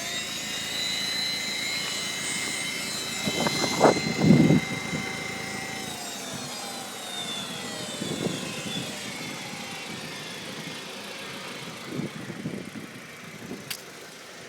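High-pitched whine from the secondary air injection pump of a 2005 Audi A4 1.8T on a cold start, over the engine's running. The whine holds steady, then from about six seconds in falls in pitch and fades as the pump winds down. The pump is on the verge of failing. A few dull thumps come around four seconds in, the loudest thing heard.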